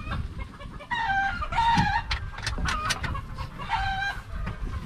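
A rooster crowing twice, about a second in and again near the end, with a few sharp clicks in between.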